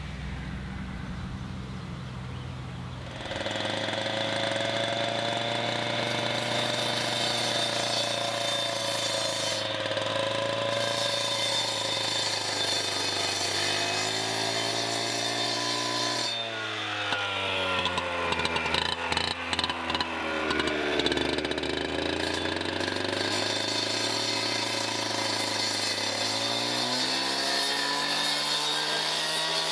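Handheld gas cut-off saw with a diamond blade cutting through concrete pavers, starting about three seconds in. It runs loud and steady, and its pitch dips and comes back up several times, with rough, uneven stretches near the middle.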